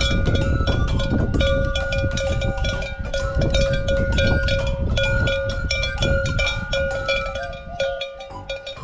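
Bells clanking and ringing in a dense, irregular jangle over steady ringing tones, growing quieter near the end.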